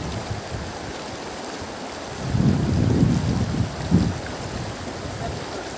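Wind buffeting the microphone over a steady rush of river water, with a stronger gust of low rumble from about two to four seconds in.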